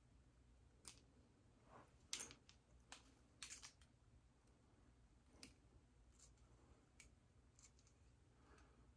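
Near silence with scattered faint clicks and soft rustles: a rat-tail comb and long acrylic nails working through the hair at a lace wig's hairline.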